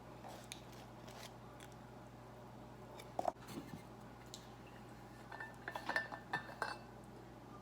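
Faint clicks and clinks of eating utensils against a takeout food container, with one sharper click about three seconds in and a quick run of ringing clinks about two-thirds of the way through.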